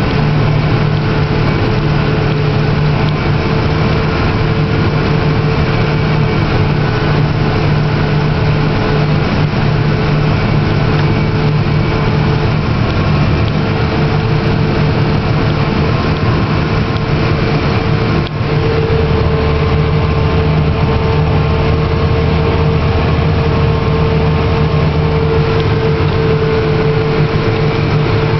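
Case IH 2388 combine running steadily while harvesting corn: a constant diesel and machinery drone with a steady hum, briefly dipping about eighteen seconds in.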